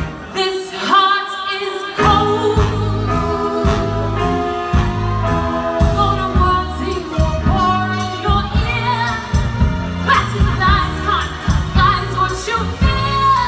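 A female singer belting over a live soul-funk band with drums, electric guitar, bass and keyboard. The low end drops out for about the first two seconds while the voice carries on, then the full band comes back in.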